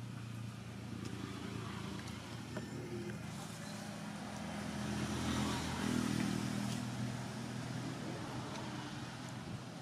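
Engine of a nearby motor vehicle running with a steady low hum, growing louder about halfway through and then fading again as it passes.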